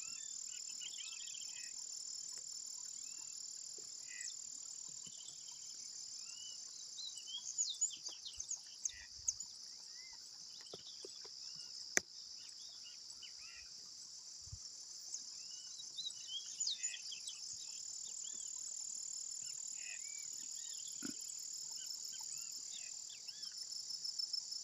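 Insects, likely crickets, keep up a steady high-pitched trill the whole time, with many short chirps from birds scattered over it. A single sharp click comes about halfway through.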